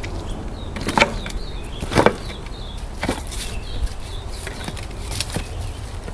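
Branches and twigs being handled, with several sharp cracks and rustles at irregular intervals, the loudest about two seconds in, over a low steady rumble; the chainsaw's motor is not running.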